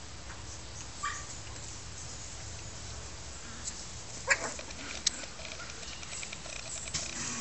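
Miniature Pinscher puppies at play, giving a few brief high yips, the loudest about four seconds in, over a steady low hum.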